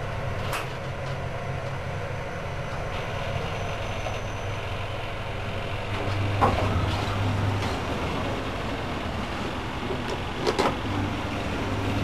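A 1990 Mitsubishi passenger elevator heard from inside the car, running with a steady low hum as it travels and arrives at a floor. There is a short louder sound about halfway through, and a few clicks shortly before the doors slide open near the end.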